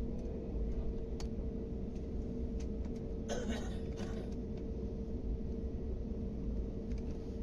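Airliner cabin noise as the jet taxis: a steady low rumble with a constant hum from the engines and cabin air. A brief hiss about three seconds in.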